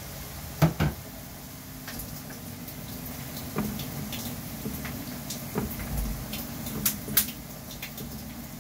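Sliced garlic frying in a pan of hot oil, a steady sizzle and bubbling, with a spatula knocking and scraping against the pan several times. The loudest are two sharp knocks about a second in. The garlic is still pale, early in the frying.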